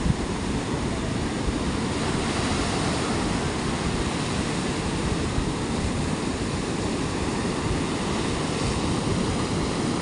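Ocean surf: waves breaking and foam washing up over a flat sand beach, a steady rushing with no separate crashes standing out.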